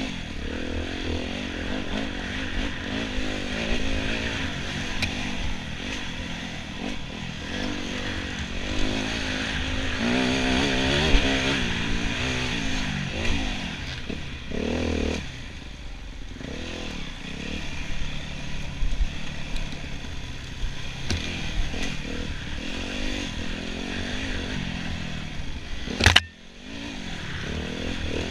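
Enduro motorcycle engine ridden off-road, its revs rising and falling continually. There is one sharp loud knock near the end.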